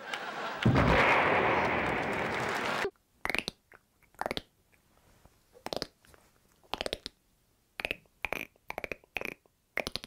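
A voice artist makes a noisy blast-like rush with his mouth for about two seconds; it is the loudest sound here and stops abruptly. Then come mouth-made imitations of bones cracking: short clusters of sharp clicks and pops with pauses between them.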